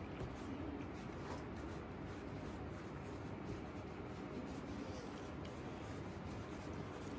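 Soft rubbing of palms rolling a rope of glutinous rice dough back and forth on a floured table, over steady room noise.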